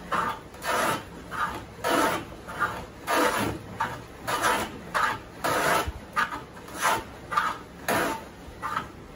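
Homemade wooden foreplane cutting along the edge of a board: quick back-and-forth strokes, about two a second, each a rasping swish as the iron takes a shaving.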